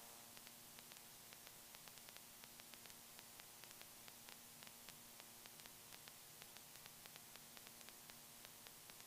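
Near silence: a faint steady hiss and hum, with many small scattered clicks.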